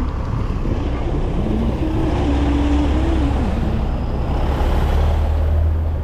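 Road vehicles running close by, a steady low rumble with the noise swelling about two seconds in and again near the end.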